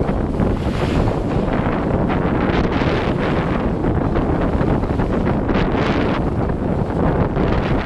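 Wind buffeting the microphone of a camera worn by a downhill skier, a loud, steady rush mixed with the skis sliding over packed snow. The rush swells briefly a few times.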